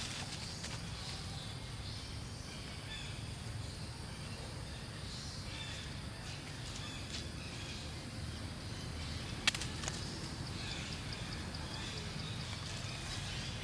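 Outdoor ambience on a forest floor: a steady low rumble with faint high chirps scattered through it, and a single sharp click about two-thirds of the way through.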